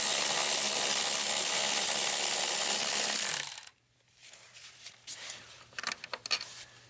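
A power tool runs steadily, undoing the battery tray bolts, with a rough hiss. It cuts off abruptly about three and a half seconds in, followed by a few light metallic clicks and clinks.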